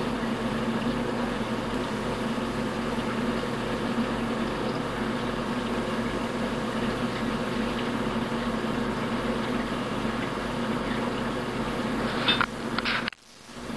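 Steady machine hum with several held tones over a low, evenly pulsing throb. A few sharp clicks come near the end, followed by a brief drop-out.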